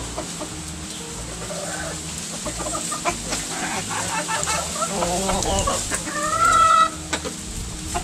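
A flock of backyard chickens clucking and calling, with one louder held call lasting under a second about six seconds in.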